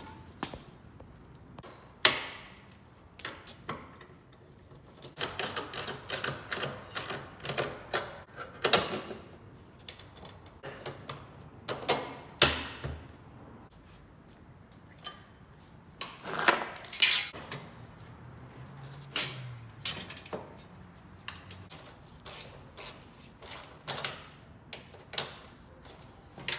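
Hand tools and metal parts being worked on a portable generator: irregular clicks, clinks and knocks, with a few sharper knocks, one about two seconds in and one about halfway through.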